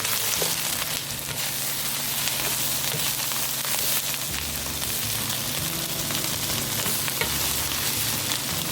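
Cicadas sizzling steadily as they are stir-fried in hot olive oil in a pan, with scattered small ticks and pops.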